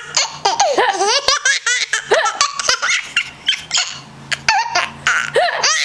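Baby boy laughing in a rapid string of short, high-pitched bursts, set off by his mother's hiccups.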